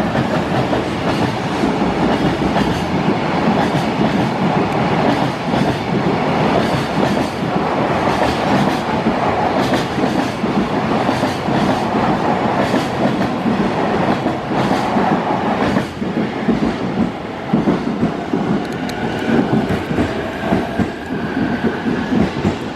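Freight train hauled by an EF210 electric locomotive passing at speed: a continuous loud rumble of the wagons' wheels on the rails, with repeated clickety-clack as the wheels cross rail joints. The rumble dips briefly about sixteen seconds in, and a faint thin squeal appears near the end.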